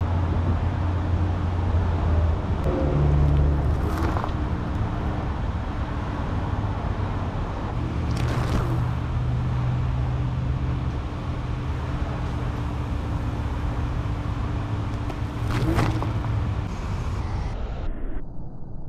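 Steady outdoor noise with a heavy low rumble, broken by three brief rushing swells about four, eight and sixteen seconds in.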